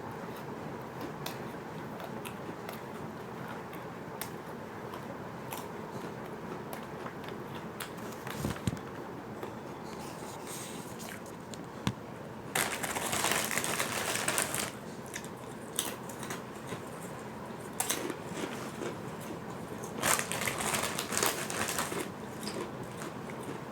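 Crunching and chewing of crisp fried fish crackers, with scattered small crackles and two louder spells of crunching, about halfway through and again about seven seconds later.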